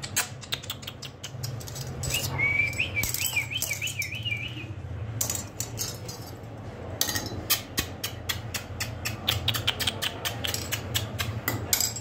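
Rapid sharp clicking calls, several a second, made to coax a puppy down the stairs, with a short wavering high whistle about two seconds in.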